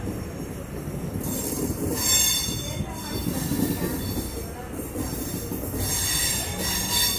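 Chennai suburban EMU train running, heard from an open doorway: a steady rumble of wheels on rail, with high-pitched wheel squeal setting in about a second in, fading briefly around five seconds and returning near the end, as the train rounds a curve.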